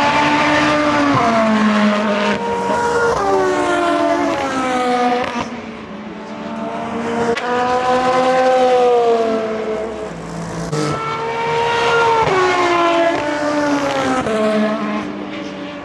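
Endurance race cars accelerating past on track, the engine notes climbing in pitch and dropping sharply at each upshift. The sound swells and fades three times as cars go by.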